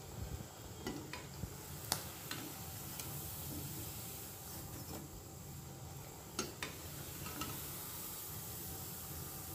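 Potato-and-semolina fingers sizzling as they deep-fry in oil in a kadai, with a few sharp clinks and scrapes of a steel slotted spoon against the pan as they are lifted out; the loudest clink comes about two seconds in.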